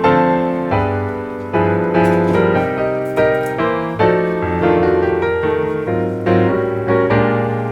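Background piano music: a melody of struck notes over sustained bass notes, each note starting sharply and fading.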